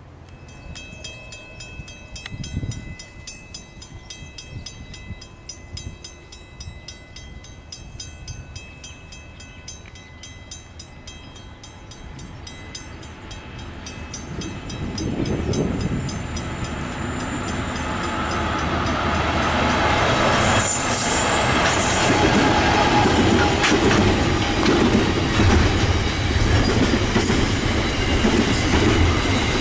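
Safetran mechanical railway warning bell ringing with rapid, even strokes, the signal that a standard-gauge train is approaching. From about halfway through, a container freight train's wagons rumble and clatter past, growing louder and drowning out the bell.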